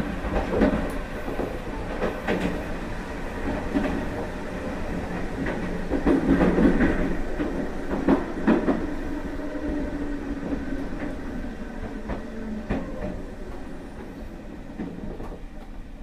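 Meitetsu 1030 series electric train running on its former 7500 series bogies, heard from the vestibule deck: steady wheel rumble with irregular clacks over rail joints and a low motor-gear hum. The hum drops in pitch and the whole sound grows quieter toward the end as the train slows.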